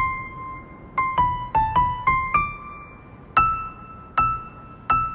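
Soft piano score playing a single-note melody: a quick run of notes about a second in, one held note, then three slow, spaced notes near the end.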